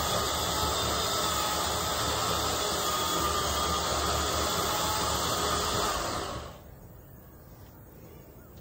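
Chainsaw running steadily with a faint high whine, then winding down and stopping about six seconds in.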